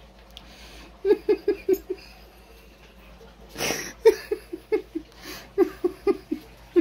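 A person laughing in quick, rhythmic bursts of 'ha-ha-ha', with a sharp breathy intake in the middle and a second run of laughter after it.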